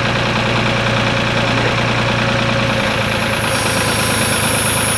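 Tractor engine running steadily at idle. A high hiss joins about three seconds in.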